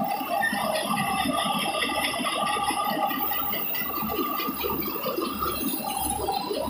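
Tractor-driven mobile rice mill running at working speed: the belt-driven huller, pulleys and blower make a steady whirring rattle with several held tones, over a low throb from the drive.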